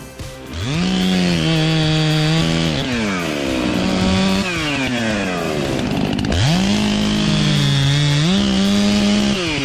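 Chainsaw revved up to full throttle and held there, its pitch dipping briefly and recovering, then falling back toward idle; this happens twice, each run lasting about three seconds.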